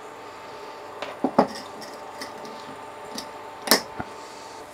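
Kitchen handling noise: a handful of separate clinks and knocks from a glass clamp-lid jar and utensils against the counter and saucepan, the loudest about three-quarters of the way through, over a faint steady hum.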